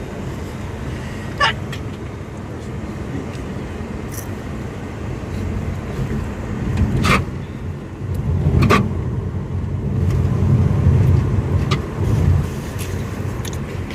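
Steady low rumble of a road vehicle in motion, growing louder for a few seconds past the middle, with a few sharp clicks.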